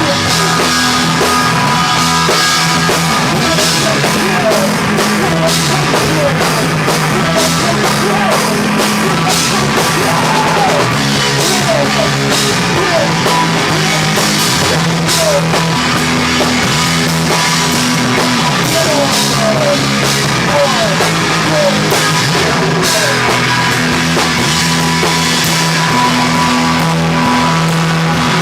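A rock band playing live at full volume: a drum kit, low bass notes and guitar, with short sliding guitar notes running through it.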